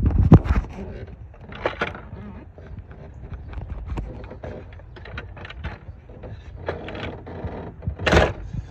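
Plastic engine cover on a 6.7 Cummins turbo diesel being handled and pulled loose by hand: irregular plastic clicks, knocks and scrapes, loudest right at the start and again about eight seconds in.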